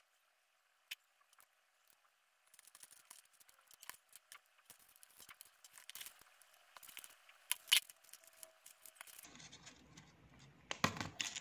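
Faint, irregular small metallic clicks and ticks of fishing hooks being worked onto a lure's split ring by hand. They grow busier after a couple of seconds, with one sharper click past the middle.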